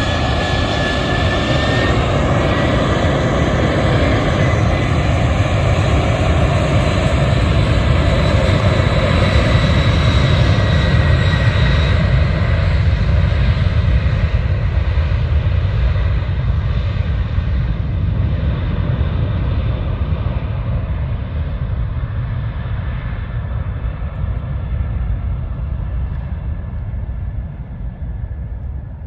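Boeing 747 Dreamlifter's four jet engines at takeoff power: a loud, deep rumble with a high fan whine. The sound swells, then grows duller and fades as the aircraft draws away, the whine dying out first.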